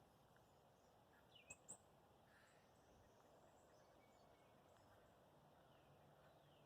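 Near silence outdoors with faint, scattered bird chirps: two brief, sharp calls about a second and a half in, and a few fainter ones later.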